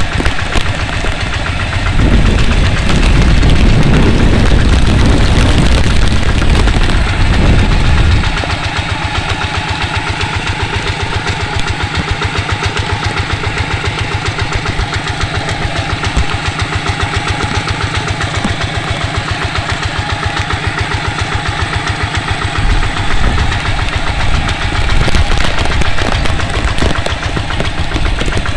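Hand tractor's single-cylinder diesel engine running with a steady, even beat of firing pulses. For several seconds near the start, a heavy low rumble of storm wind on the microphone drowns it out.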